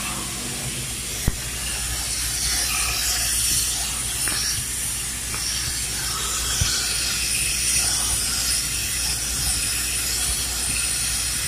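Steady hiss of pressurised nitrogen gas rushing through a hose and gauge into refrigeration lines for a pressure test, over a low hum. Two sharp clicks come through it, one a little over a second in and one about six and a half seconds in.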